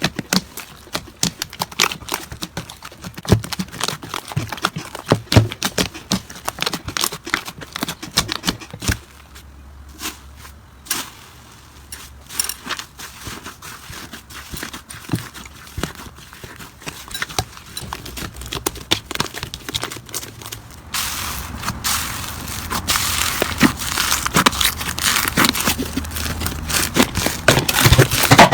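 Slime being squeezed and poked by hand, giving many quick crackling pops and clicks. About two-thirds of the way through the crackling becomes denser and louder.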